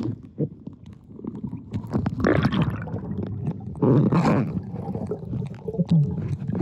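River water splashing and gurgling close to the microphone, in uneven swells, with wind buffeting it.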